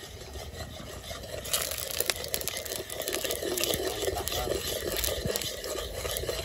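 A metal spoon scraping and stirring around an aluminium pot of sugar browning in hot oil, with small crackles, beginning about a second and a half in.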